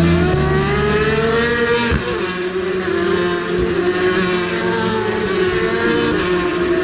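Racing motorcycles passing one after another at speed, engines accelerating: the pitch rises for about two seconds, drops sharply at a gear change, then climbs again, with another drop near the end.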